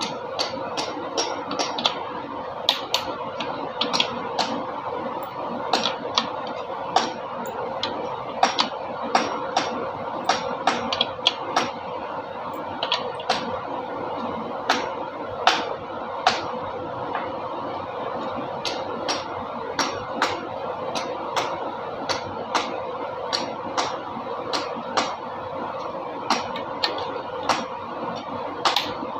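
Irregular sharp clicks and taps of hand tools on metal engine parts, a few a second, over a steady hum.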